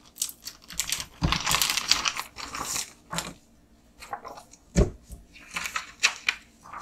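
Clear plastic bag crinkling and rustling as a decal sheet and an instruction manual are handled inside it, with two dull knocks along the way.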